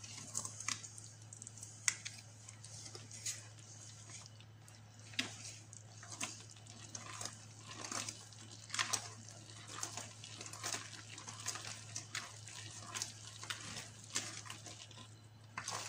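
Wire whisk mixing thick batter in a stainless steel bowl: faint, irregular taps and scrapes of the wires against the bowl, about one a second, as eggs and evaporated milk are worked into flour. A steady low hum runs underneath.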